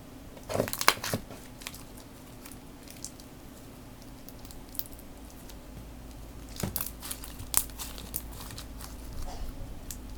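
Fishbowl bead slime squeezed and pulled by hand, crackling and popping in two clusters of sharp clicks, one about half a second in and another around the middle to late part, with scattered single pops between.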